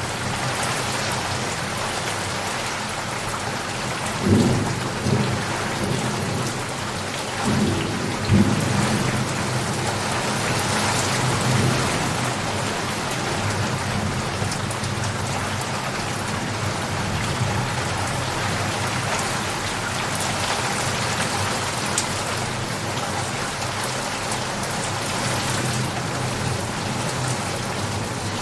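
Steady rain falling, with low rolls of thunder about four seconds in and again around eight seconds.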